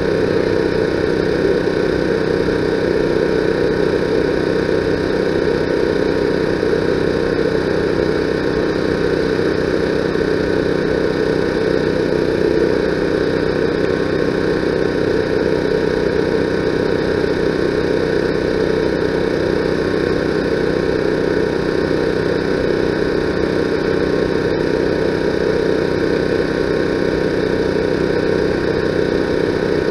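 A steady mechanical drone, like an engine running at idle, that holds level without change.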